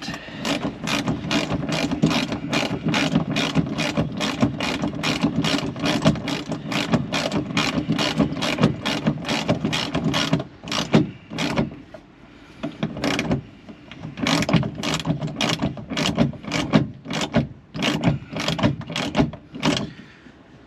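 Hand ratchet wrench clicking steadily as a seat belt anchor bolt is run in, with a short pause about halfway through.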